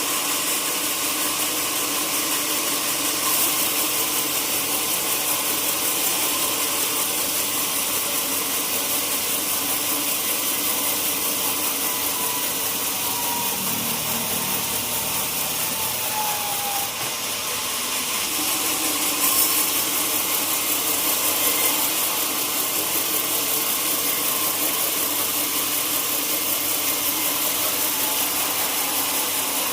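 Sawmill machinery running steadily: an even, loud hiss over a constant hum, with a faint whistling tone that slides slightly downward around the middle.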